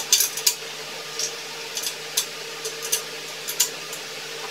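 Irregular light metallic clicks and taps as hands and a small wrench work the bolt of a balance bike's seat-post clamp, tightening it to hold the saddle; a few come close together at first, then they are scattered, over a steady low background hum.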